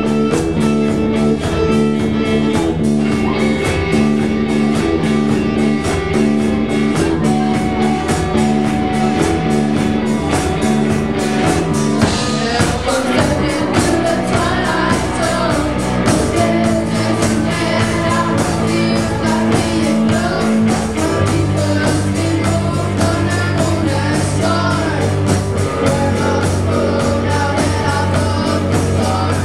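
A live rock band playing: electric guitars over bass and drum kit in a steady repeating riff, with a lead singer coming in about twelve seconds in.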